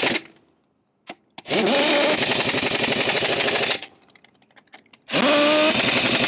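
Pneumatic impact wrench hammering lug nuts onto a semi truck's dual wheel, run down in a crisscross pattern. It goes in bursts: one cuts off right at the start, two short blips come about a second in, then a run of about two seconds, and another run starts about five seconds in. Each run opens with a rising whine as the air motor spins up.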